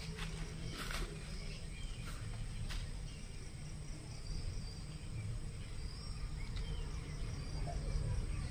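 Outdoor ambience: a steady high-pitched insect drone with scattered faint bird chirps over a low rumble, with a couple of faint clicks in the first three seconds.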